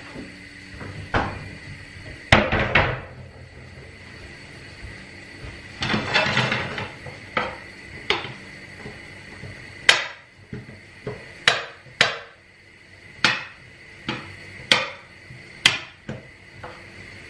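Wooden spatula knocking and scraping against a frying pan as pieces of meat are broken up and stirred, with sharp knocks about once a second in the second half.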